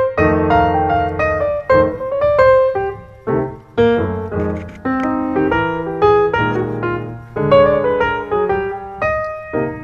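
Background piano music: a solo piano playing struck chords and melody notes.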